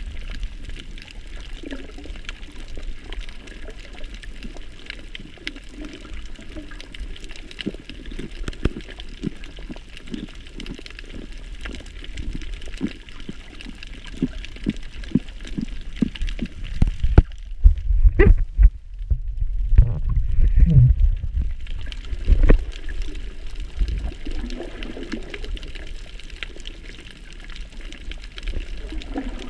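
Water sloshing and trickling around a camera held underwater while snorkelling, muffled, with a run of soft ticks. From a little past halfway, for about five seconds, it turns to a louder, dull low rumble.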